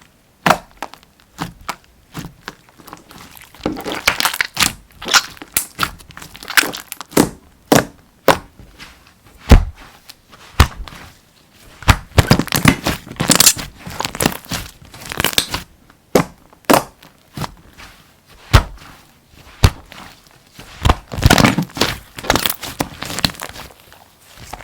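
Hands squeezing, poking and stretching slime, giving a string of sticky clicks and crackles that come in several dense flurries with short gaps between.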